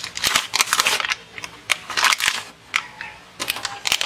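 A toy's plastic packaging crinkling and crackling as its printed wrapper is torn open and the clear plastic blister tray is pulled out. The crackling is densest at the start and again about two seconds in, then thins to scattered clicks.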